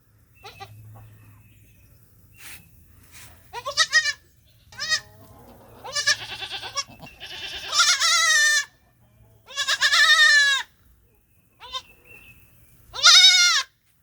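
Baby goat (kid) bleating: a string of high calls, short ones at first, then several long, wavering bleats of about a second each, the loudest near the end.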